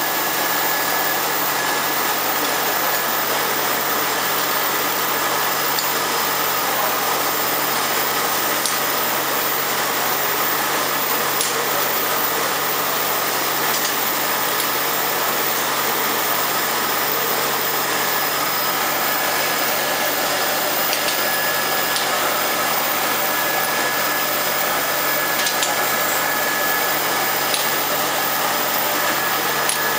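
Vial washing and drying line running: a steady machine whir from the tunnel drying oven and its mesh-belt conveyor, with a thin steady whine and a few faint ticks.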